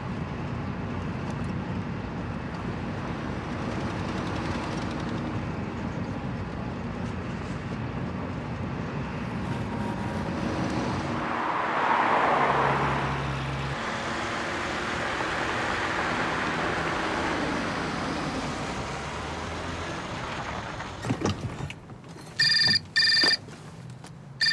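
Steady road-traffic rumble that swells as a vehicle passes about halfway through, then a telephone ringing twice in quick succession near the end.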